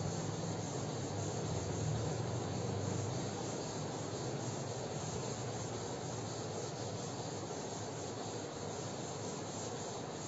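Board duster rubbing across a chalkboard as it is wiped clean, a soft, steady scrubbing hiss.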